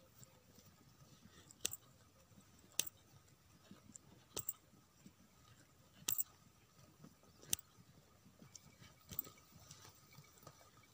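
Small scissors snipping wool, trimming the yarn pom-poms on a hand-woven bag: a handful of sharp, faint snips at irregular intervals, a second or more apart.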